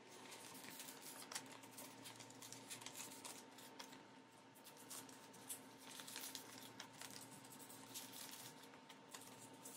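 Faint rustling and soft clicks of plastic binder sleeves and a photocard being handled as the card is slid into a binder pocket, over a faint steady hum.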